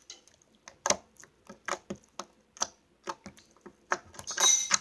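Sticky clear slime being kneaded by hand, making sharp irregular clicks and pops about two a second, with a short hissing squelch near the end.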